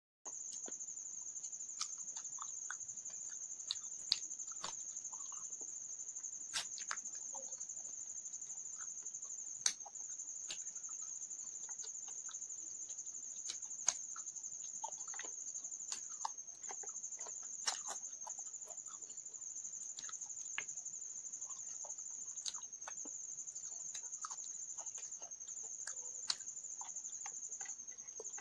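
Crickets trilling steadily at a high pitch, over scattered sharp clicks and smacks of chewing and of eating rice by hand.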